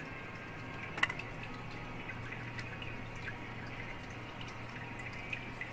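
Water dripping and trickling slowly from a gravity water filter's cartridge into its lower tank, with a sharp click about a second in.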